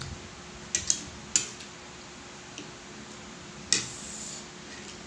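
A metal fork clinks against a plate about five times, the loudest knock with a short ring near the end, over a steady low hum.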